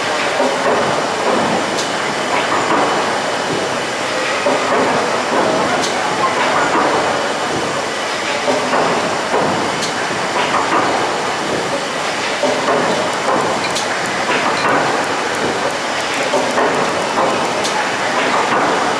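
Kempton's giant triple-expansion steam pumping engine running, its connecting rods and crank turning with a steady mechanical clatter. The noise swells in a slow regular beat with each turn, and sharp clicks come through now and then.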